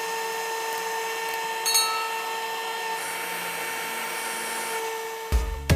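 A small electric motor running steadily with an even high whine over a hiss, briefly louder about two seconds in. Music starts near the end.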